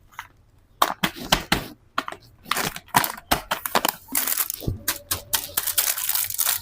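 Plastic being handled: irregular crackling, crunching and sharp clicks, starting about a second in.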